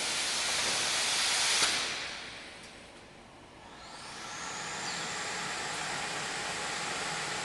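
Refrigerator heat-shrink wrapping machine hissing as it blows heat. The hiss dies away about two seconds in, then builds up again with a rising high tone that levels off into a steady hiss.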